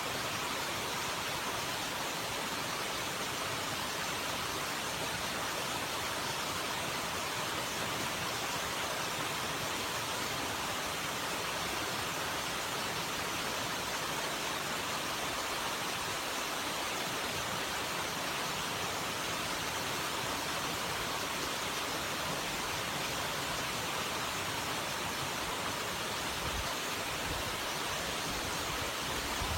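Steady rushing of running water, an even unbroken noise with no splashes or changes.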